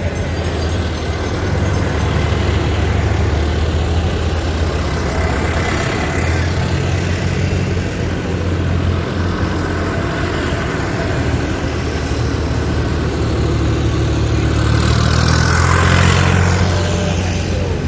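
Diesel farm tractor engines running as tractors drive past in a line, a steady low engine drone that swells as one passes close near the end.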